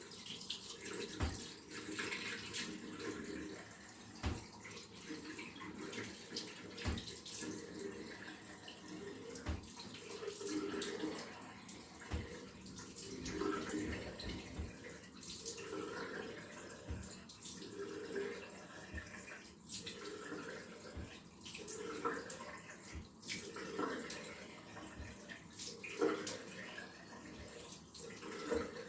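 Bathroom tap running into a sink while water is splashed onto the face every couple of seconds, rinsing off foam cleanser.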